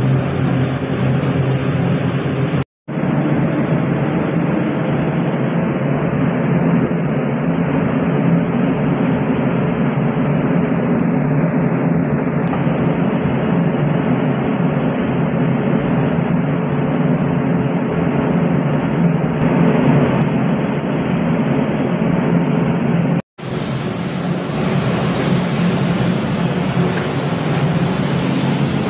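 Steady rushing noise with a low hum from a paint spray booth's ventilation running. It cuts out for an instant twice, once about three seconds in and again near twenty-three seconds.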